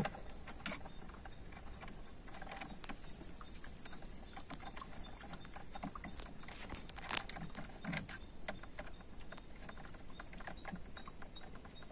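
Faint, scattered small clicks and scrapes of a screwdriver working the terminal screws of a motor starter contactor as a wire is fitted, with a sharper click about eight seconds in.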